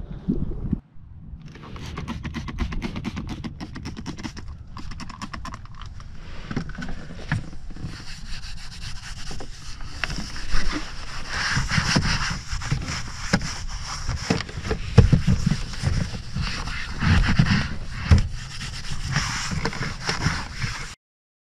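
Cloth rag rubbing and wiping a car's interior door panel close to the microphone: a rasping scrub in uneven strokes with scattered light clicks and knocks, cutting off abruptly near the end.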